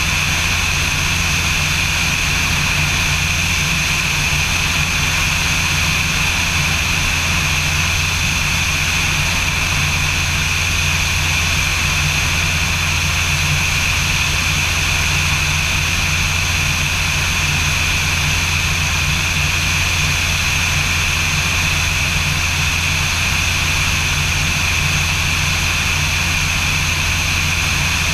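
Light aircraft's propeller engine droning steadily in level flight, with a constant pitch throughout.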